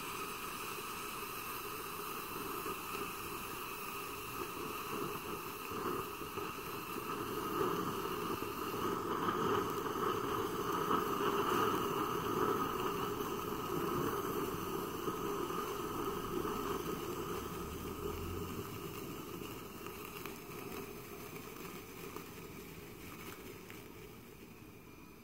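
Sparkler burning under water, the water fizzing and bubbling as the gas it gives off rises and ignites at the surface. The steady hiss swells about a third of the way in, then fades away toward the end.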